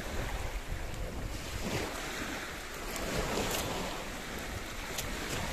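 Surf washing on a beach, with steady wind buffeting the phone's microphone.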